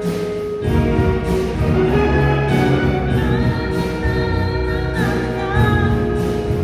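Live swing band playing, with a steady beat under a held melody line.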